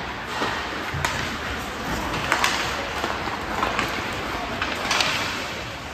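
Ice hockey play: several sharp clacks and knocks of sticks, puck and boards, the clearest about a second in, a close pair just after two seconds, and one near five seconds, over a steady noisy rink background.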